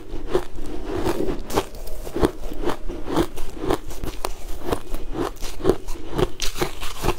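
Close-miked crunching and chewing of a frozen sweet ice bar, in a steady run of crisp crunches about two a second.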